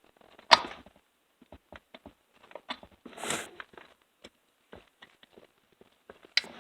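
Hand tools clicking and scraping on the chainsaw's chain brake parts while a screwdriver is used to lever the chain brake spring into place. There is a sharp click about half a second in, a short scraping rasp around three seconds, and another sharp click near the end, with light taps in between.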